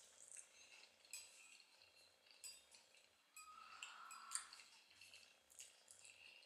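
Faint eating sounds: chewing with small mouth clicks, and a metal fork scraping and clinking on a plate a little past halfway.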